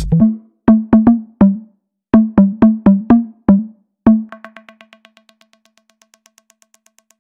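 Electronic dance track made on a Korg Electribe groovebox, its ending: the bass and kick drop out, leaving a syncopated pattern of short pitched drum-machine hits. From about four seconds in, one hit repeats about six times a second, fading away.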